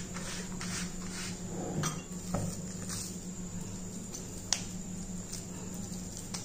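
A wet hand wiping over a banana leaf in soft swishing strokes, then scooping and squeezing jowar-spinach dough in a glass bowl, with a few light clicks against the bowl. A steady low hum runs underneath.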